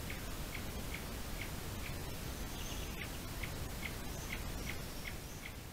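Faint, short, high chirps repeated evenly about twice a second by a small animal, with a few fainter, higher calls around the middle, over a steady hiss.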